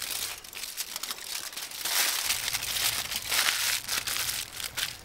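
Aluminium foil crinkling and crackling as it is folded up by hand into a cooking parcel. The crinkling is irregular and gets busiest about halfway through.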